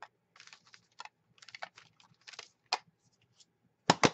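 Ink pad tapped and rubbed against notebook paper in a run of short, irregular dabs and scuffs, then two sharp, loud knocks in quick succession near the end.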